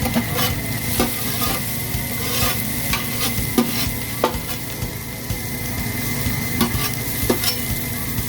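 Food frying and sizzling in a hot pan, a steady hiss with irregular sharp clicks as a utensil stirs and taps against the pan.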